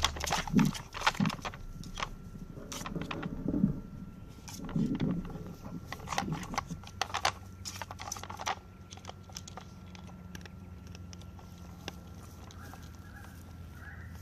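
Irregular plastic clacks and knocks from a Dog Tornado treat puzzle being worked by a puppy. They stop about two-thirds of the way through, leaving a faint steady hum.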